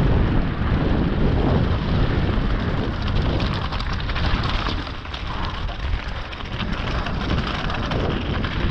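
Wind buffeting the microphone of an action camera on a mountain bike descending a loose rocky scree trail at speed, with the tyres and bike rattling and crunching over the stones throughout.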